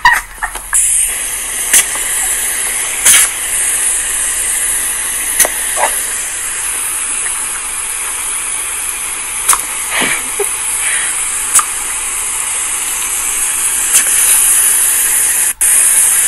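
Garden-hose spray nozzle shooting a strong jet of water: a steady loud hiss that starts about a second in, with a few brief sharp clicks through it.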